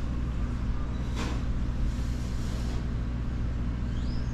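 A steady low hum made of several steady low tones, with a brief soft rustle about a second in and a short rising chirp near the end.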